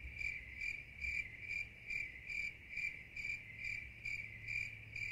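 Faint cricket chirping, evenly spaced at about two chirps a second.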